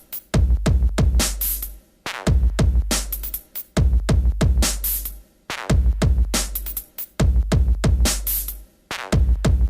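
Electronic background music with a heavy drum-machine beat and deep bass hits.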